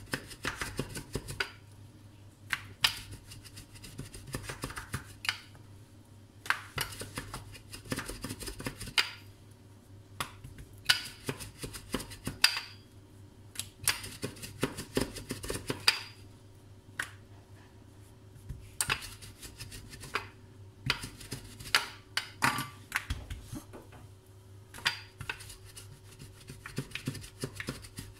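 Metal rolling pin rolling out a round of dough on a granite countertop, clicking and knocking against the stone in short bursts of strokes with brief pauses between. A steady low hum runs underneath.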